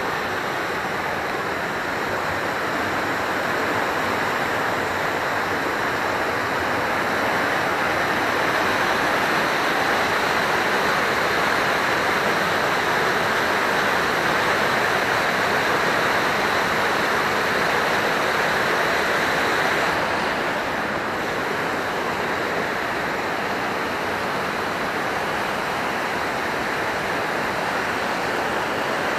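Rushing mountain stream: a steady, loud wash of running water that swells slightly after the first few seconds and eases a little about two-thirds of the way through.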